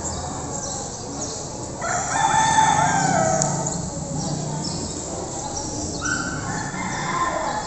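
Rooster crowing twice, once about two seconds in and again about six seconds in.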